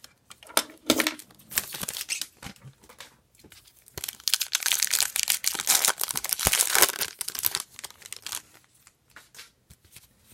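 A trading card pack's wrapper being torn open and crinkled: scattered rustles at first, then a dense run of crinkling from about four seconds in to past seven, tailing off into light handling.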